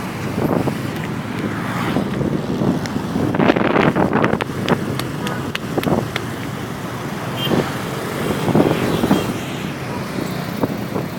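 Roadside traffic noise, with vehicles passing close by on the road. A cluster of short sharp clicks or knocks comes about three to five seconds in.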